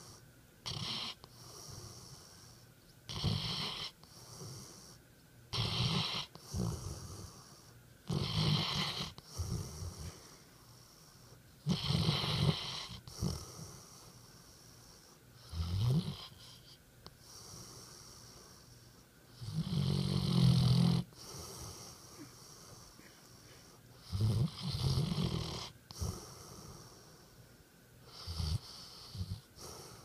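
Large dog snoring through its open mouth in deep sleep: a rasping snore with each breath every two to four seconds, some with a wheezy hiss. The loudest snore comes about twenty seconds in.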